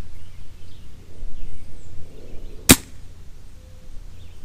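A single sharp snap about two and a half seconds in: a shot from a spring-powered VSR-10 airsoft sniper rifle fitted with a suppressor. A low wind rumble lies underneath.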